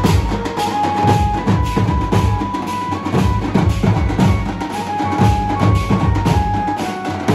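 Street band of large strap-hung bass drums, beaten with sticks in a fast, dense rhythm by several drummers together. A high melody line of held, changing notes runs over the drumming.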